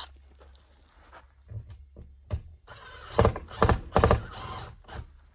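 Cordless screw gun driving an 8-32 machine screw into a light's mounting bracket: it runs for about two seconds, starting near the middle, with three stronger surges. Sharp handling clicks come near the start and near the end.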